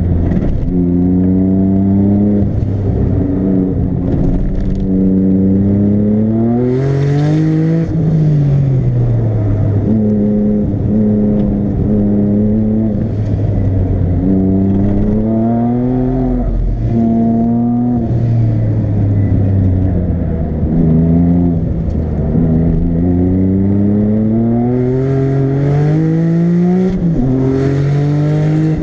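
Twin-turbo flat-six of a Porsche 997 GT2, tuned to about 700 hp, heard from inside the cabin on track. It pulls up through the revs again and again, the pitch climbing and then dropping at gear changes, with stretches where the revs fall away steadily. Short bursts of hiss come at the top of the revs about seven seconds in and again near the end.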